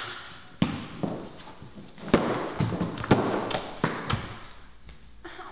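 A person falling and scrambling on a wooden floor: several sharp thuds and knocks, with scuffling and rustling between them.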